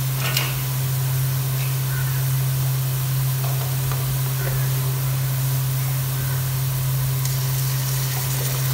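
Sliced onions sizzling in hot cooking oil in a pot, frying toward light golden brown, over a steady low hum. A light clink comes just after the start, and the sizzle brightens about seven seconds in as ginger-garlic paste goes into the oil.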